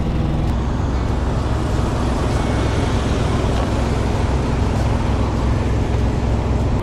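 Semi-truck diesel engines idling, a steady low rumble with an even hum underneath.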